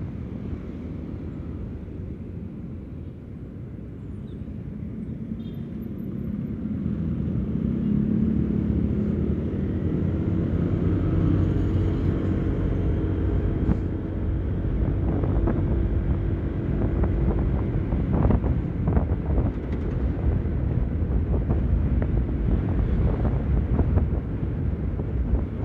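Honda PCX 160 scooter's single-cylinder engine pulling away and accelerating. Wind rumble on the microphone grows louder as speed builds over the first several seconds, then holds steady while cruising.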